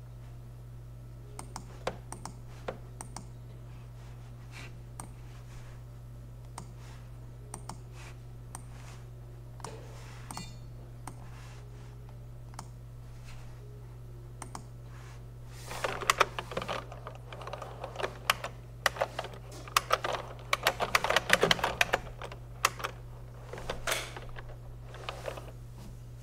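Single mouse-button clicks a second or two apart, then from about sixteen seconds in quick runs of typing on a computer keyboard, over a steady low electrical hum.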